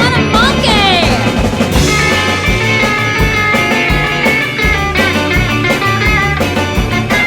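Rock band music: electric guitar and drum kit playing a passage with sliding notes in the first second, then long held notes over a steady beat.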